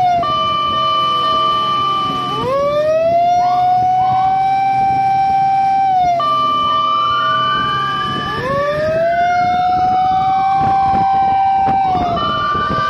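Fire truck's electronic siren sounding loud from on board the pumper. Its long wails rise, hold and fall, broken by stretches of a steady high tone.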